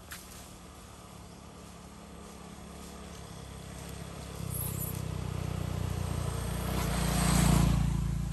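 A motor vehicle approaching along the road and passing close by: its engine and tyre noise grow steadily louder over several seconds, peak near the end, then start to fade.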